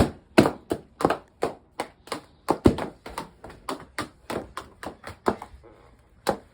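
Small balloons bursting one after another in a rapid, irregular string of sharp pops, about three a second, thinning out near the end.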